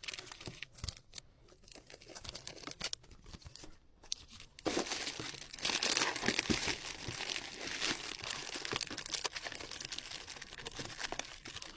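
Packaging crinkling as it is handled while items are packed: light scattered rustles and clicks at first, then a denser, continuous crinkling from about five seconds in that stops just before the end.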